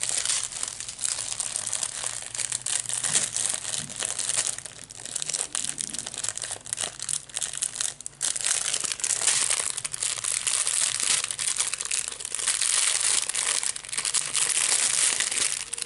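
Clear plastic packaging crinkling and rustling as it is handled: the plastic sleeve of a diamond-painting canvas and small plastic bags of diamond drills. It eases off in the middle and is fuller and steadier in the second half.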